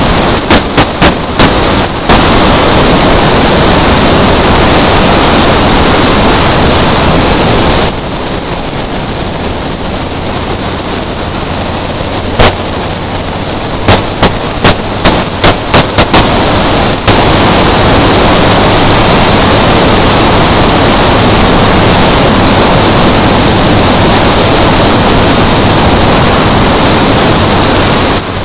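BMW drift car driven hard, its engine and the wind overloading a bonnet-mounted camera's microphone in a loud, rough roar. Sharp exhaust pops come in quick strings, about half a dozen near the start and more in a quieter off-throttle stretch in the middle, before the full roar returns.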